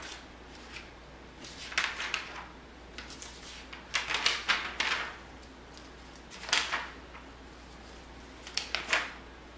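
A handful of short rustling and scraping handling sounds, as of paper or small objects being moved, over a low steady room hum.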